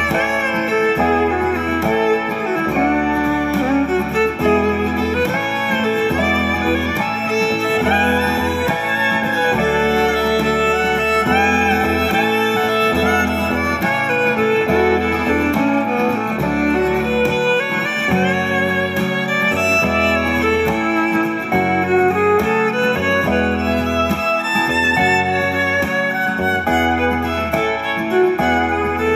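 Instrumental background music: a violin-like melody with sliding notes over a plucked-string accompaniment and a steady bass line.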